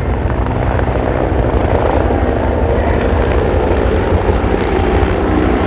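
Military helicopters flying in formation overhead: steady, loud rotor and turbine engine noise with a fast low pulsing from the rotor blades.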